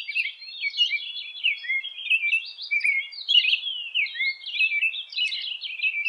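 American robin singing its caroled 'cheerily, cheer-up' song: an unbroken string of short whistled phrases, each sliding up and down.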